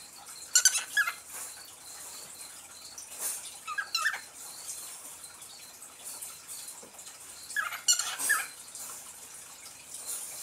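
A pet cockatiel making soft short chirps in three brief clusters: about a second in, around four seconds, and around eight seconds. A soft rustle comes just after three seconds.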